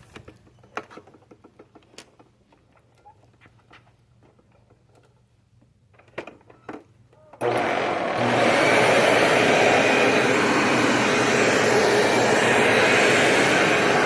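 A few faint clicks and knocks, then about halfway through a bagless vacuum cleaner switches on suddenly. Its motor runs with a steady, loud rushing noise and a faint whine.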